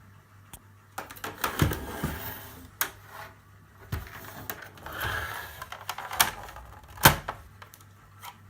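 Olympia Traveller C manual portable typewriter being worked: irregular mechanical clacks and clicks, the loudest about seven seconds in.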